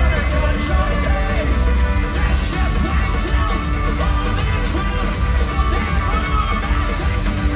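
Celtic punk band playing an instrumental jig live, with drums, bass, guitars and a lead melody, heard from the audience in a large theatre.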